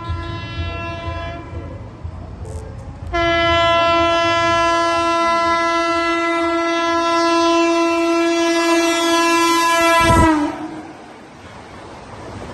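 Electric locomotive's horn sounding as the train runs through: a short blast, then a long blast of about seven seconds that drops in pitch as it cuts off. After it comes the rush of the passing coaches.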